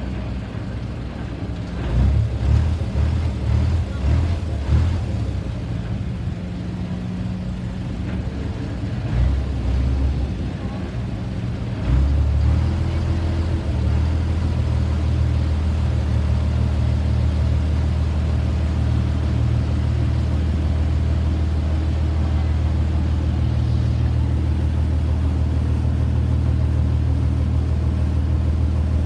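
River ferry's engine running: it rises and falls unevenly in the first few seconds as the boat pulls away from the pier, then settles into a steady low drone from about twelve seconds in.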